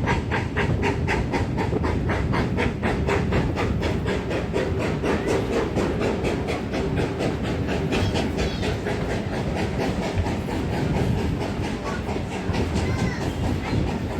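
GWR Manor-class 4-6-0 steam locomotive 7828 Odney Manor working uphill, its exhaust chuffing about four beats a second over the steady rumble of the train running on the rails. The beats grow less distinct about five seconds in.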